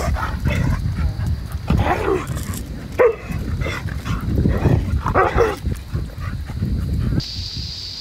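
Dogs barking and yipping several times, short pitched calls over a steady low rumble.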